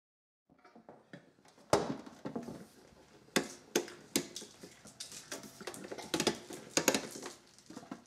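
Handling noise from a slow cooker: the glass lid knocking onto the stoneware crock and the control knob being turned on the base. It comes as a string of sharp knocks and rattles, the first loud one about two seconds in.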